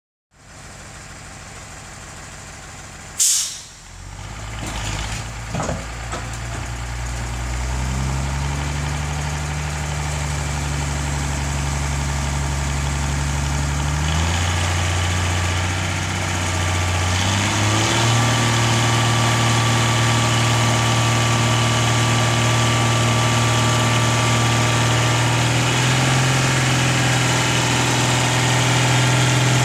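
Hook-lift roll-on/roll-off truck with its engine running to drive the hydraulic hook arm as it drags a loaded bin up onto the truck. The engine speed steps up several times as the lift works. A short, sharp burst of air hiss comes about three seconds in.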